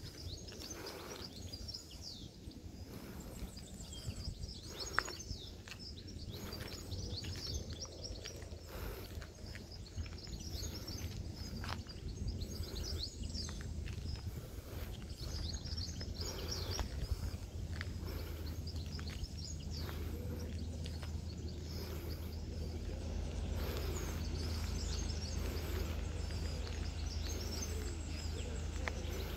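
Outdoor birdsong: many short, high chirps and calls from several birds, over a steady low rumble, with one sharp click about five seconds in.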